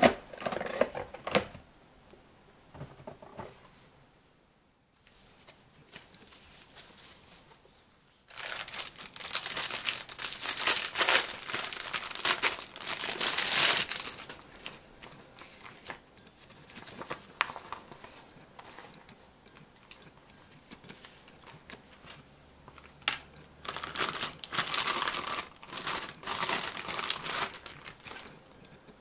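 Clear plastic bags crinkling and rustling as a camera lens pouch and lens hood are unwrapped, in two long spells, one about eight seconds in and one near the end, with quieter handling sounds between.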